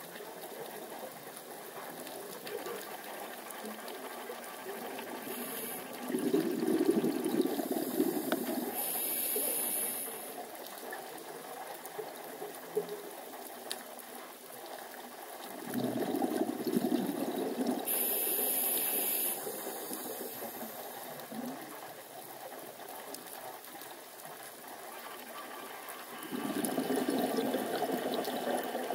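Scuba diver's breathing through a regulator, heard underwater. Three long stretches of bubbling exhalation come about ten seconds apart, and after the first two there is a short high hiss of the regulator supplying air.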